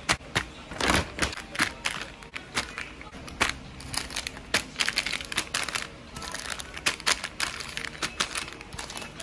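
Plastic and foil sachets crinkling as they are handled and laid into a plastic tub, with irregular crackles and light clicks throughout.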